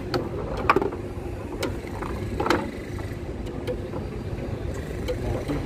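Foosball table in play: the ball and plastic players knocking and clacking irregularly as the steel rods are spun, over a steady low rumble of background noise.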